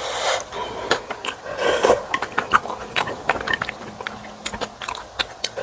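Close-miked eating sounds: wet chewing and mouth clicks while eating spicy ramen and kimchi. There are two breathy hisses, one at the start and one about two seconds in.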